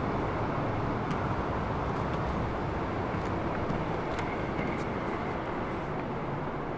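Steady outdoor city ambience: an even rumble of distant traffic, with a few faint clicks.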